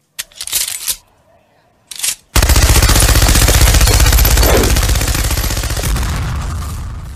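Machine gun sound effect: two short bursts of noise, then a long continuous burst of rapid automatic fire lasting about five seconds that slowly fades toward the end.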